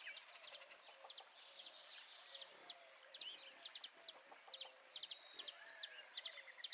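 Outdoor nature ambience: quick high-pitched bird chirps in clusters over a steady high insect trill, which breaks off briefly about three seconds in.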